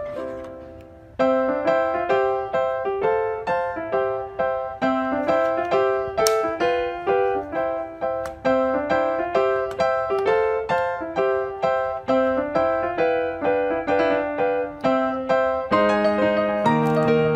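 Background music played on piano or keyboard: a lilting melody of short struck notes in repeating phrases, briefly dropping away about a second in before starting again, with lower notes joining near the end.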